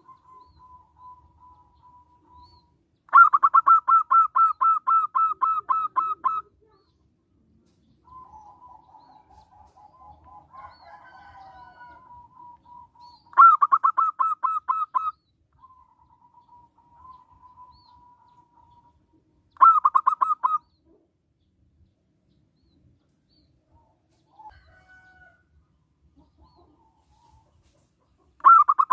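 Zebra dove (perkutut) calling in loud bursts of rapid, evenly spaced short notes, about five a second, each burst lasting one to three seconds, four times. Between the bursts there are fainter drawn-out bird calls.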